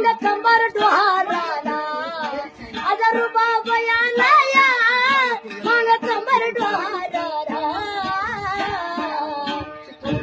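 A woman singing a Marathi Bhim geet folk song in a high, wavering voice with long, ornamented held notes, over a steady drone note.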